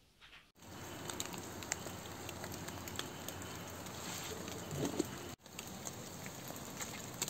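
Outdoor ambience in a snowy winter wood: a steady hiss dotted with many small crackles and ticks. It drops out for an instant about five seconds in.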